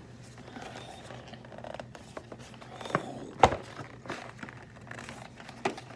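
Hands handling and turning over a calculator's retail box: light rustling and small clicks of the packaging, with a single sharp knock about three and a half seconds in.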